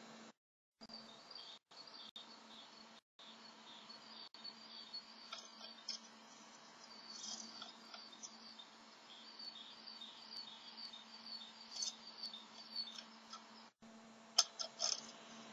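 Great tit at work inside a nest box lined with moss: faint rustling of the nesting material and a long run of quick, short, high chirps, with a few sharper scratchy clicks near the end. A steady low hum sits under it all.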